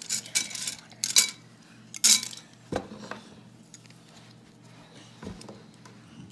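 Small hard-plastic pieces of a Smashers smash ball clicking and clattering as they are handled and fitted together. There is a run of sharp rattles in the first three seconds, then quieter scattered clicks.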